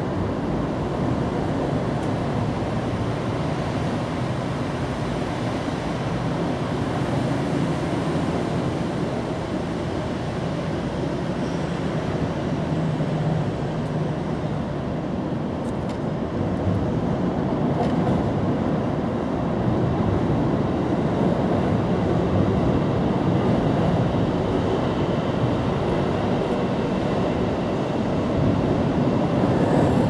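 Steady rumbling background noise with no single clear source. It grows a little louder about halfway through.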